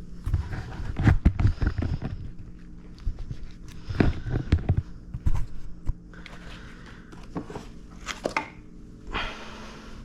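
Clattering knocks and scrapes of hand work, in two dense clusters in the first half and a few single knocks later, over a faint steady low hum.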